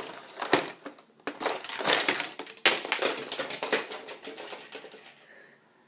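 Plastic toy blocks clattering and knocking against a plastic shape-sorter box and tray in a run of irregular knocks that thins out near the end.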